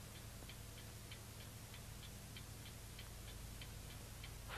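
Clock ticking steadily and faintly, about three ticks a second, over a low steady hum.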